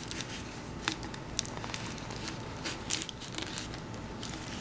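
Thin aluminum foil wrapped around a plastic water bottle crinkling under the fingers as it is smoothed down flat against the bottle, in light, irregular crackles.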